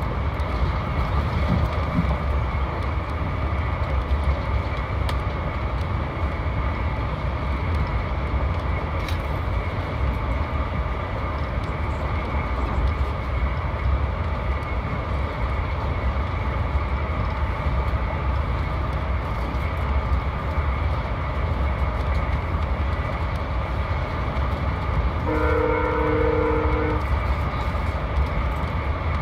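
Steady low rumble of a VIA Rail passenger coach running at speed, heard from inside the car. Near the end comes one held blast of about a second and a half on the lead GE P42DC locomotive's horn, a two-note chord.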